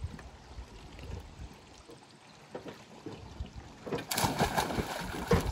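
Lake water lapping quietly against a floating dock, then a splash about four seconds in as a person dives off the dock into the lake.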